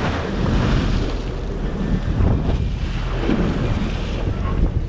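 Wind noise on the microphone over sea water churning and splashing along a boat's hull.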